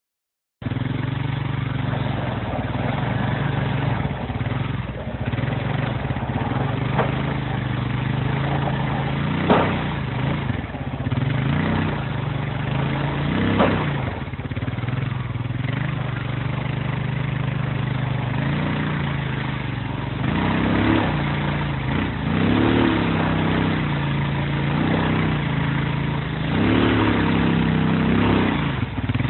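Kubota RTV-1140 utility vehicle's three-cylinder diesel engine running steadily as it pushes snow with a V-plow. Its pitch swells briefly several times as it takes load. Two sharp knocks stand out, about ten and fourteen seconds in.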